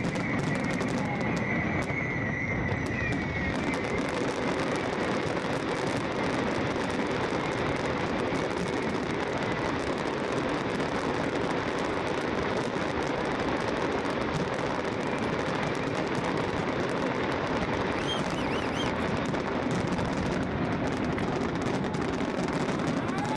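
Aerial fireworks going off in a rapid, unbroken barrage of shell bursts and crackling, with a thin whistle over the first few seconds.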